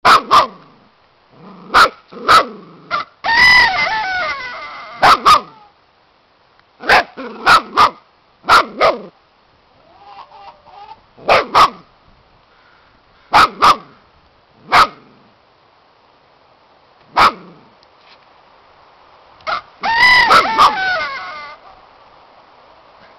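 A puppy barking in short single and double barks every second or two, with two longer drawn-out calls of nearly two seconds, one about three seconds in and one near the end.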